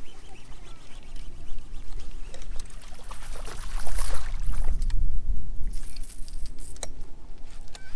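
A small bass splashing at the surface beside the boat as it is reeled in, loudest about halfway through, followed by a few light knocks and rattles.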